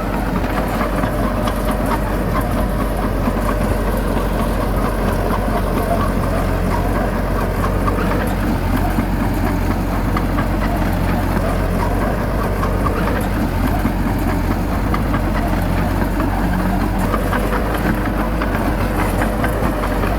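Bulldozer's heavy diesel engine running steadily, with a constant low drone and a continuous clatter of small knocks.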